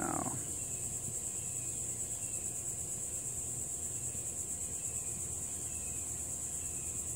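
Steady high-pitched trill of singing insects, an outdoor insect chorus, with faint short falling chirps repeating about once a second.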